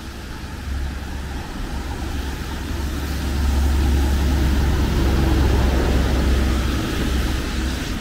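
Road traffic on a wet city street: a steady hiss of tyres and engine rumble that swells as a vehicle passes close, from about halfway through, then eases off near the end.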